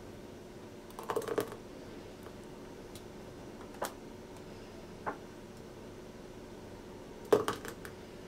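Metal ladle and spoon clinking against a stainless-steel pot and glass cups while rice pudding is ladled out and stirred: a short flurry of clinks about a second in, two single ticks in the middle, and another flurry near the end, over a faint steady hum.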